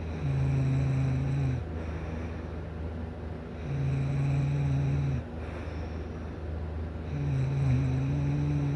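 A sleeping person snoring: three long, low, buzzing snores about three and a half seconds apart, one with each breath.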